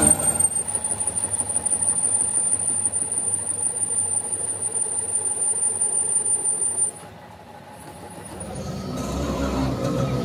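Lathe cutting tool squealing with a steady, very high whistle as it turns down a steel crankshaft main journal, over the running noise of the machine. The squeal and machine noise stop suddenly about seven seconds in.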